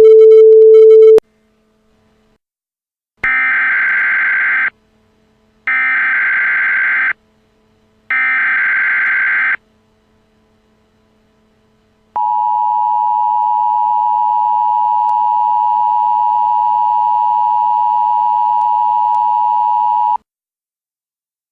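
A brief loud steady tone, then an Emergency Alert System sequence: three bursts of SAME digital header data tones, each about a second and a half long with short gaps between them, followed by the EAS two-tone attention signal held steady for about eight seconds.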